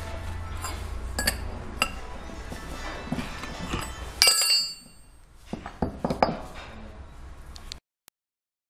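Steel parts of a ring die pelletizer roller assembly clinking and knocking together as the shaft and bearing are fitted into the roller shell. One loud clang about four seconds in rings on briefly.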